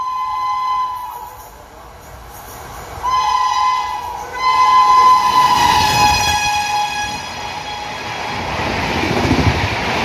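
WAP7 electric locomotive's shrill horn blowing in blasts. One trails off about a second in, a short one comes around three seconds, then a long blast dips slightly in pitch as the locomotive goes past. It is followed by the rising rush and rumble of the passenger coaches passing at about 130 km/h.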